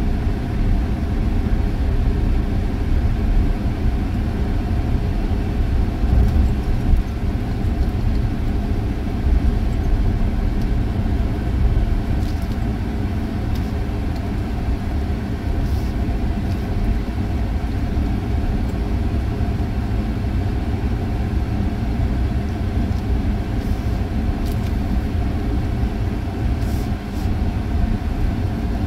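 Inside a moving vehicle's cabin while it drives on beach sand: a steady low drone of engine and tyre rumble, with a few faint ticks and rattles here and there.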